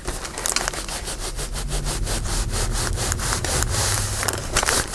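Rapid back-and-forth rubbing over paper, several even strokes a second, smoothing down a freshly glued strip of tape on a journal page.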